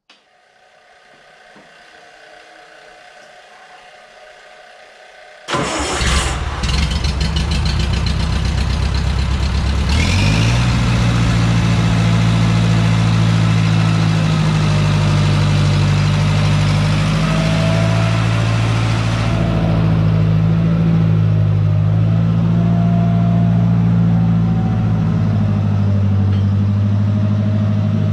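Old Bobcat skid-steer loader's engine started about five seconds in: the starter cranks it for about four seconds before it catches, then it runs steadily as the loader is driven off.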